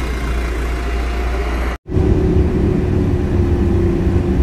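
City bus engine rumbling at the kerb. After a sudden cut about two seconds in, the sound is heard from inside a moving bus: a louder low engine rumble with a steady drone.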